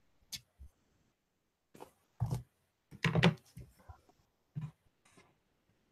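Quiet video-call audio broken by a sharp click near the start and a few brief, indistinct voice sounds, the loudest about three seconds in.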